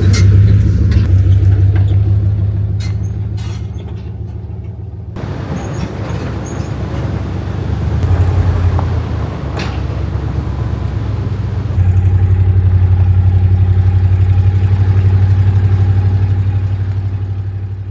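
Dodge Dakota pickup truck running while driving, a steady low engine drone with occasional knocks and rattles. The sound changes abruptly twice, about 5 and 12 seconds in, and fades out near the end.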